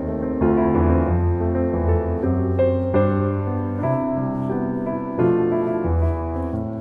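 Background piano music: a gentle, slow piano piece with sustained chords and a melody over low bass notes.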